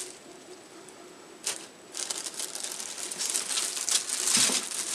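Plastic packaging crinkling as bagged plastic model-kit sprues are handled and lifted out of a cardboard box. It is mostly quiet with one brief rustle in the first two seconds, then crinkles steadily and grows louder toward the end.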